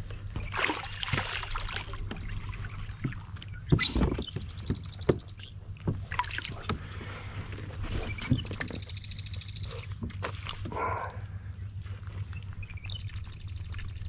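Handling noise in a plastic fishing kayak as a bass is swung aboard and unhooked: scattered knocks and bumps on the hull, the sharpest about four seconds in, over a low steady rumble. A rapid, high ticking trill comes and goes four times.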